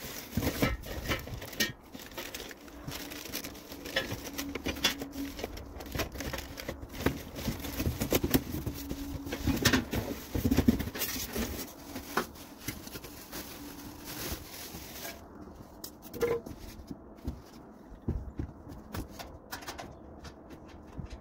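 Irregular clicks, taps and light scraping of grill parts and hardware being handled during assembly. The handling is busiest in the middle and thins out in the last few seconds.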